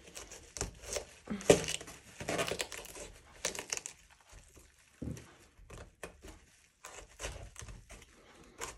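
Cauliflower leaves being cut and snapped off the head with a small knife: irregular crisp crackling, tearing and snapping, with the sharpest snap about one and a half seconds in.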